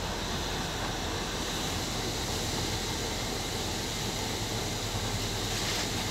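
DT3-E U-Bahn train running along the track, heard from inside the driver's cab: steady rumble and hiss of the moving train with a faint steady high tone.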